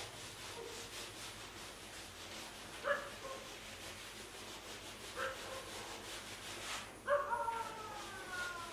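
Dogs barking: two short yelps about three and five seconds in, then a longer call falling in pitch from about seven seconds.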